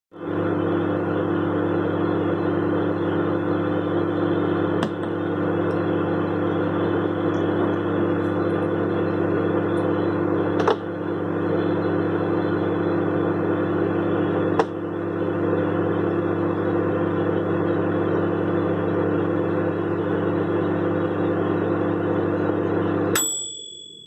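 Manual-dial microwave oven running while it cooks scrambled egg: a steady electrical hum, broken three times by a sharp pop. About a second before the end it cuts off with a clack, and its timer bell dings once.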